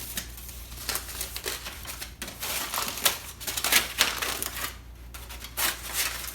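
Thin wooden guitar side and bending form being handled: irregular clattering knocks and rustling scrapes of wood, busiest a few seconds in, over a steady low hum.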